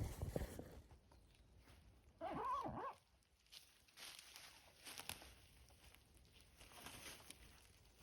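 A short, wavering whine lasting under a second, about two seconds in, most like an animal's call, followed by faint rustling and footsteps.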